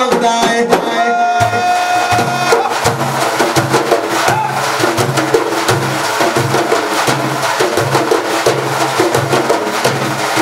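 Two daf frame drums played together in a brisk, even rhythm. A sung note from the lead voice is held over the first drum strokes and fades out a couple of seconds in.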